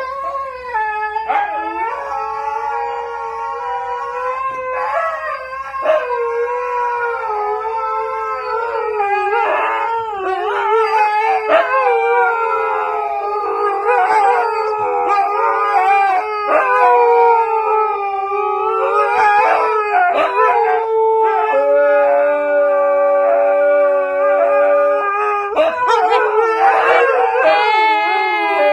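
A dog howling on and on, a long wavering "singing" howl that slides up and down in pitch with hardly a break. For about three seconds past the middle, a second steady held tone sounds along with it.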